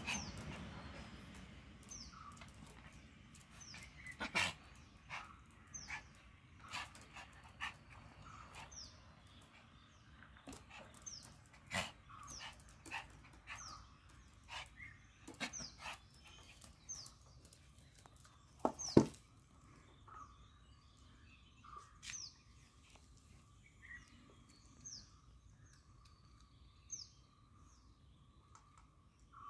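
A small spitz-type dog making scattered short sounds, yaps and sharp clicks, moving about on a stone floor, with one loudest knock about 19 seconds in.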